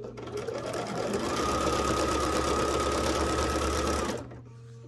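Electric Bernina sewing machine stitching lace onto fabric: the motor speeds up over about a second, runs at a fast, even stitching rate with a steady whine, then stops a little after four seconds in.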